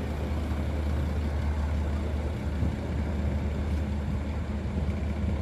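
Intercity coach bus's diesel engine running as the bus pulls away at low speed: a steady low drone.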